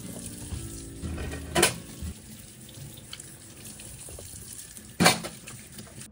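Water running from a kitchen tap into a sink, with two loud sharp knocks, one about a second and a half in and one about five seconds in.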